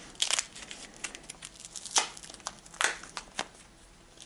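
Hands handling plastic and small parts: a crinkling rustle broken by several sharp clicks, the strongest about two seconds in and just before three seconds, then dying away near the end.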